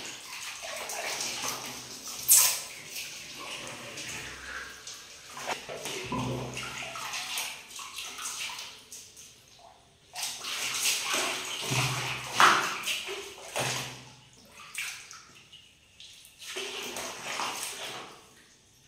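Bath water splashing and sloshing in irregular bursts as it is played in, with two sharper, louder splashes.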